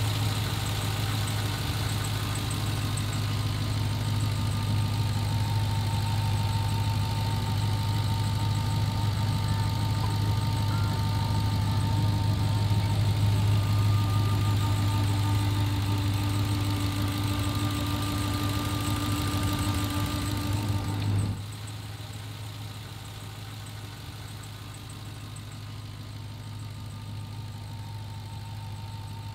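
Supercharged 6.2-litre V8 of a 2021 Ram TRX idling steadily with a deep, even hum. About three-quarters of the way through the sound drops abruptly to a quieter idle.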